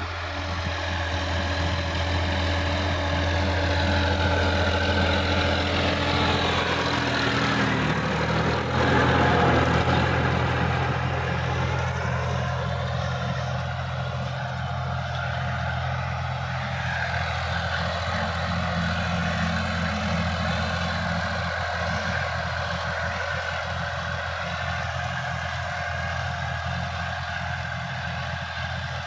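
Sonalika DI-50 RX tractor's diesel engine running steadily under load as it pulls a rotary tiller through the soil. It grows louder as the tractor comes close, is loudest about nine seconds in as the engine note drops in pitch while it passes, then carries on a little quieter as it moves away.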